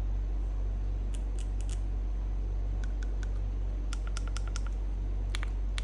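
Light clicks and taps from handling a small plastic motorcycle intercom unit and its packaging, in short groups including a quick run of about eight ticks near the middle, over a steady low hum.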